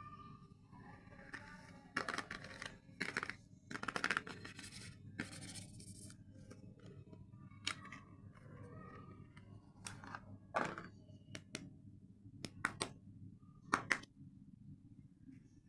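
Soap packaging being unwrapped and opened by hand: irregular short bursts of wrapper tearing and crinkling, busiest in the first half, then scattered sharp snips and taps.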